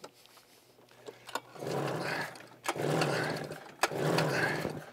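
Snowmobile engine being cranked over for a compression test, in three pulls about a second apart, starting about one and a half seconds in.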